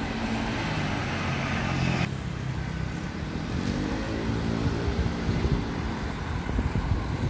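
Road traffic passing on a street: motor vehicle engines and tyre noise, louder and hissier for the first couple of seconds, with one engine note rising and falling around the middle.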